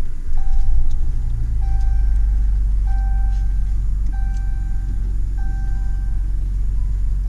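A steady low rumble with an electronic beep repeating over it, five short beeps about a second apart.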